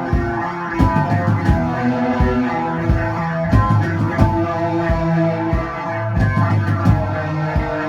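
Rock band playing live: guitar chords ringing over a drum kit, with the drums hitting at irregular intervals.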